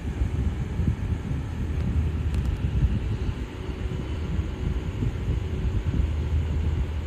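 Portable cordless fan running, its airflow buffeting the microphone as a loud, fluttering low rumble with a faint steady motor hum.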